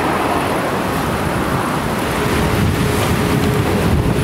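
Airbus A320-family airliner taxiing, its twin jet engines running at low taxi power as a loud, steady rumble. A faint steady hum joins about two seconds in.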